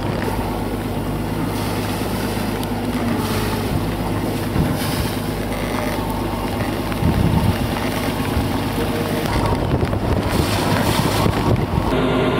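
A sailing boat's inboard engine running steadily while under way, with wind noise on the microphone over it. Near the end the engine drone becomes louder and plainer, as heard in the cabin below deck.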